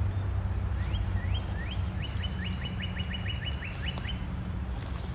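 A songbird singing: a few spaced, slurred notes about a second in that quicken into a fast run of a dozen or so, ending about four seconds in, over a steady low background rumble.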